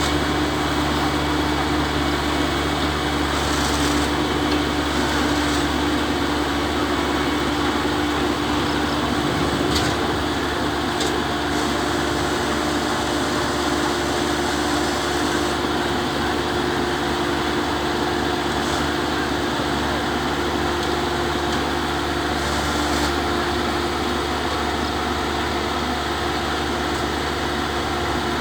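Motorised rice thresher running steadily: a continuous, even machine drone with a steady low hum.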